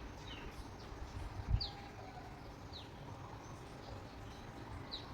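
A small bird giving short, high, down-slurred chirps, four or five spaced about a second apart, over a steady low rumble. A dull thump about a second and a half in is the loudest sound.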